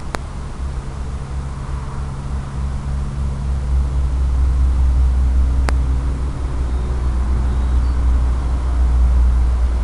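Steady hum of a 650-size quadcopter's motors and propellers over a heavy wind rumble, getting louder about four seconds in. Two sharp clicks, one near the start and one a little past halfway.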